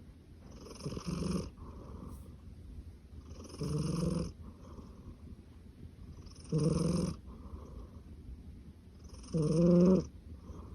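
A sleeping cat snoring: four pitched snores, about three seconds apart and each about half a second long, with quieter breaths between them. The cat is sound asleep and does not wake.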